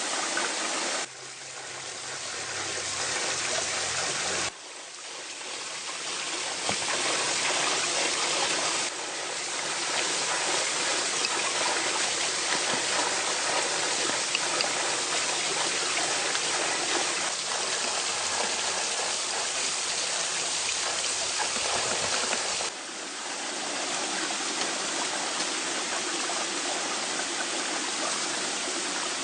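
Steady rushing of a forest stream, a continuous hiss of running water. Its level drops suddenly and swells back a few times.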